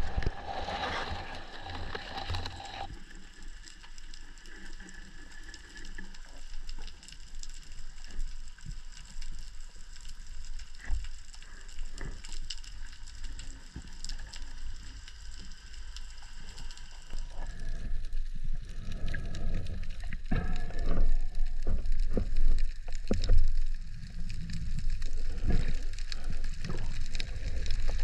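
Underwater ambience picked up by a submerged camera: a low rumble of water moving, with scattered sharp clicks and crackles throughout. A louder rush of water in the first three seconds, and the rumble grows louder again about two-thirds of the way through.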